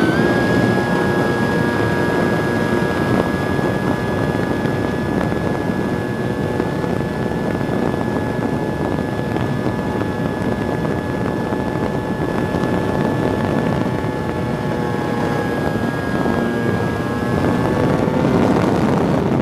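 Radio-controlled 3D aerobatic model airplane's motor and propeller running steadily, heard from a camera mounted on the plane: a loud, steady whine over rushing wind on the microphone. The pitch dips slightly a few seconds before the end, then rises again.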